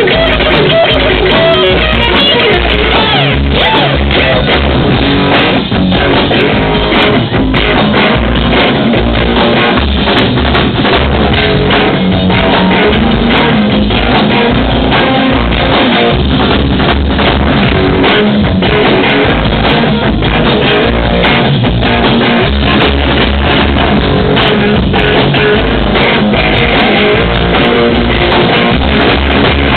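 Live rock and roll band playing loud: electric guitar, bass and drum kit. It is recorded right by the PA speakers, so the sound is harsh and distorted.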